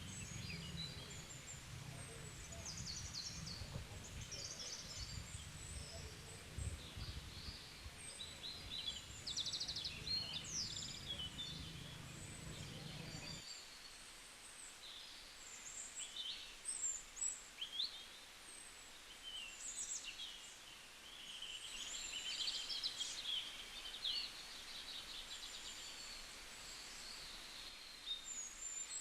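Small birds chirping and calling, many short high chirps overlapping one another. Under them a low rumble stops suddenly about halfway through.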